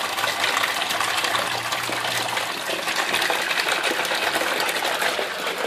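Water gushing steadily from the drain outlet of an aquaponics radial flow filter into a plastic tub, splashing into the water already collected there. This is the filter being emptied, the stream carrying out its settled solids as sludge.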